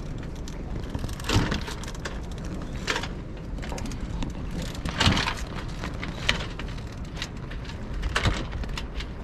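Yacht sails slatting in a dying breeze: the sailcloth flaps with a few irregular sharp cracks, over a low steady rush of wind.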